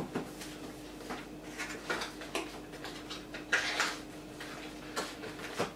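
Cardboard umbrella box handled on a hard tabletop: scattered light taps and knocks, with a short scraping rustle about three and a half seconds in, over a faint steady hum.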